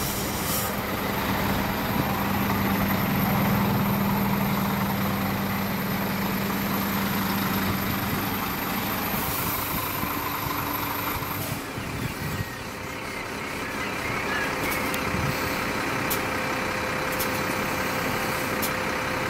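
Scania coach diesel engine idling steadily with a high whine, then cutting out about halfway through. Steady street noise and a few sharp clicks follow.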